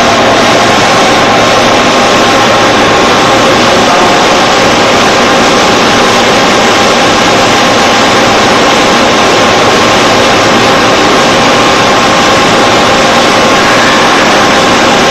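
Gray 550F CNC horizontal boring mill running, a loud, steady mechanical noise with a faint whine that changes pitch near the end.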